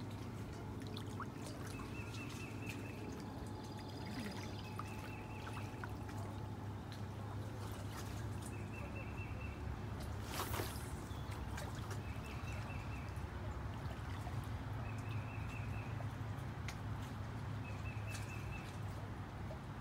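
Small waves lapping and trickling at a lake's edge, while a bird repeats a short trill every few seconds. One brief swish cuts through about ten seconds in.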